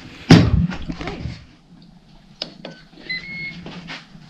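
Ninja Foodi multi-cooker's hinged crisping lid swung shut with a loud clunk, then a few small clicks and two short electronic beeps from its control panel about three seconds in.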